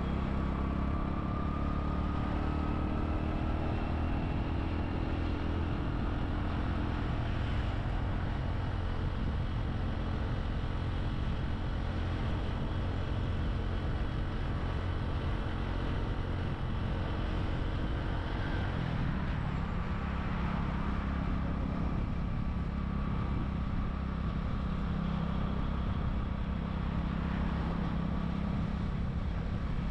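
Motorbike engine running under way, over a steady rush of road noise; about two-thirds of the way through, the engine note shifts lower and then holds.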